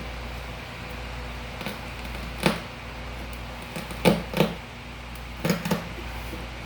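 Pry bar levering up laminate flooring planks: a handful of sharp knocks and cracks, some in quick pairs, over a steady low hum.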